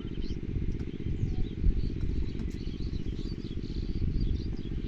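Small birds chirping over a steady low rumble that is the loudest sound.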